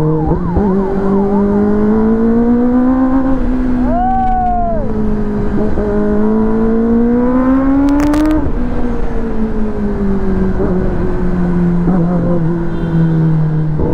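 Kawasaki ZX-10R sportbike's inline-four engine under way, heard from the rider's seat. It pulls up in pitch twice, dropping sharply at each upshift, then eases off with the pitch slowly falling. A short tone rising and falling comes about four seconds in, and a brief crackle about eight seconds in.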